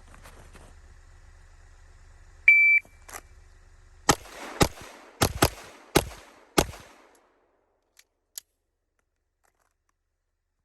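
Shot timer's start beep, then six pistol shots over about two and a half seconds, the middle ones closer together, followed by two faint clicks.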